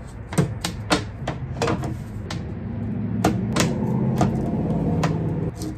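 A magnet-held painted board knocking and clicking against the front of a plywood cabinet as it is pressed and fitted into place, its magnets catching: about a dozen sharp, separate clicks and taps. A low hum rises underneath from about halfway in.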